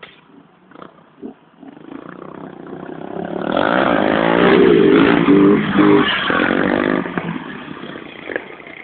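Motorcycle engine revving as it approaches, passes close by and moves away, building to its loudest in the middle and fading near the end.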